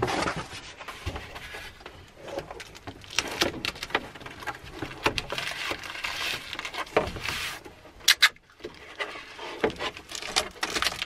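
Cardboard sheets rustling and scraping as they are pressed against a van's side window, with adhesive tape being pulled off the roll and pressed down. A run of irregular rustles and taps, with two sharper sounds close together about eight seconds in.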